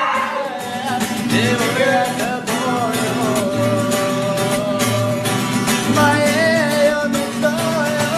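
A song: a singing voice over instrumental backing with guitar and a steady beat.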